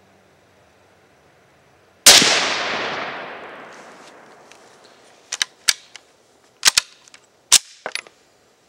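A single shot from a 1916 Tula Mosin-Nagant M91 rifle in 7.62x54R, its report dying away over a few seconds. Then a string of sharp metallic clacks as the bolt is struck hard to open it, because the surplus cartridge cases are sticking in the chamber, which the shooter blames on the ammo rather than on a sticky bolt.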